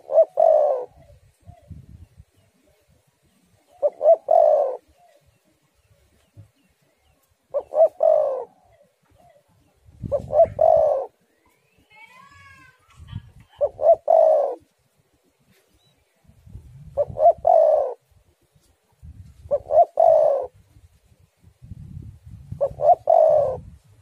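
Spotted dove (tekukur) cooing its repeated song phrase about every three seconds, eight phrases in all. Faint higher chirps come in near the middle, and low rumbling runs between some of the later coos.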